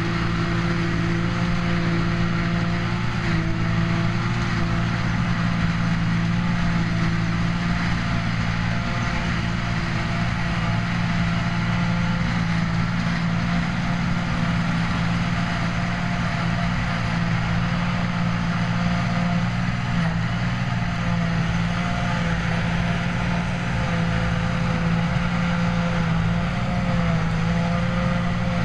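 New Holland TM155 tractor running steadily under load as it drives a JF trailed forage harvester picking up grass, with a second tractor drawing the silage trailer alongside; a constant engine drone with a steady hum of machinery.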